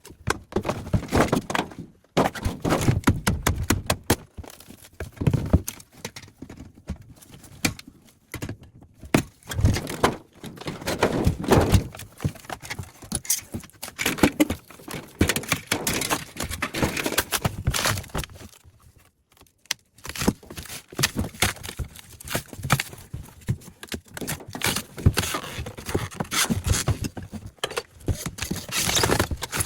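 Irregular knocks, clanks and scraping of a refrigerator being taken apart by hand for scrap: metal panels, tubing and parts banged, pried and pulled loose, with a few short pauses.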